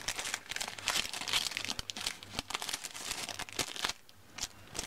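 Clear plastic bag crinkling as it is handled, in quick irregular crackles that thin out near the end.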